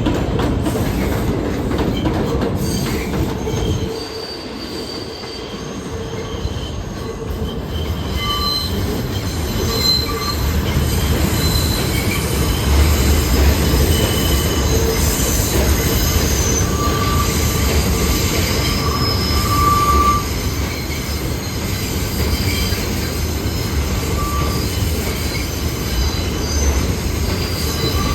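New York City Subway train running on the White Plains Road line, its rumble growing after a brief lull about four seconds in, with short high-pitched wheel squeals coming and going.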